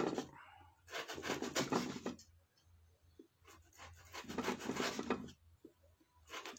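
A knife scraping and cutting a block of palm sugar into small pieces, in two scraping runs of about a second and a half each.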